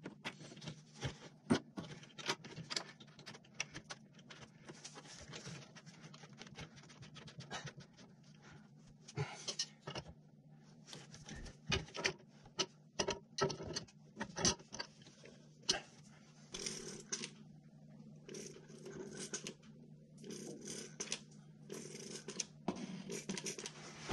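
Brass fitting on a corrugated stainless gas line being threaded back on by hand and tightened with a wrench: scattered light metal clicks and scrapes over a steady low hum.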